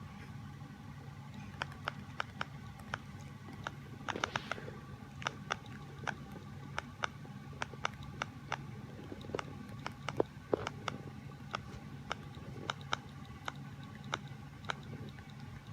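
A pet bird imitating keyboard typing: a run of irregular sharp clicks, sometimes several in quick succession, over a steady low hum.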